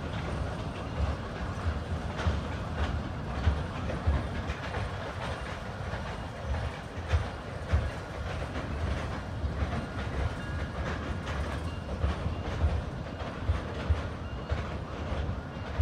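Vintage passenger coaches, a baggage car and a caboose rolling across a steel girder bridge: a steady low rumble with the wheels clicking and knocking irregularly over the rail joints.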